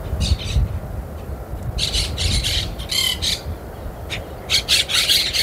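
Birds squawking in three bouts of harsh, rapid calls, over a low rumble underneath.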